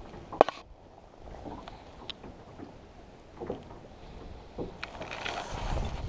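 Wind and water around a small fishing boat, with a sharp click about half a second in and a few fainter clicks from hands and pliers working the hook out of a small fish. Wind noise on the microphone rises near the end.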